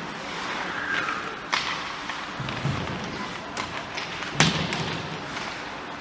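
Ice hockey puck and sticks knocking against the rink boards: a few sharp knocks, the loudest about four and a half seconds in, over a steady rink background.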